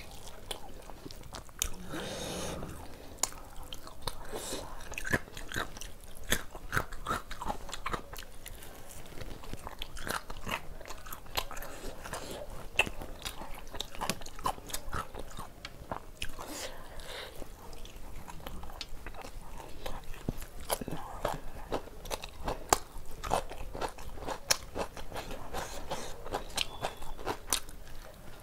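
A person chewing and biting mouthfuls of mutton curry and seekh kebab close to the microphone, with many sharp, irregular mouth clicks and smacks.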